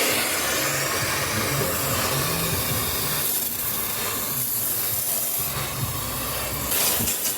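Steady hissing of air or gas over a low hum, with a short burst of clicking and rustling near the end.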